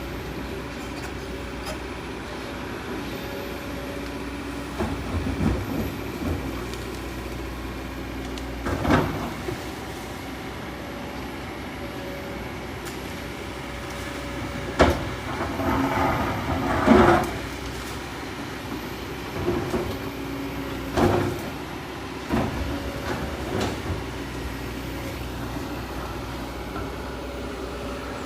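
Kobelco 220 excavator's diesel engine running steadily under load. Several loud clanks and scrapes come through it as the bucket cuts into the hillside, with a longer grainy rush of scraping about halfway through.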